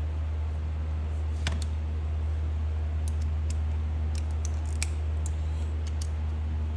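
Scattered light clicks and taps of hand tools on metal while engine fasteners are tightened, over a steady low hum.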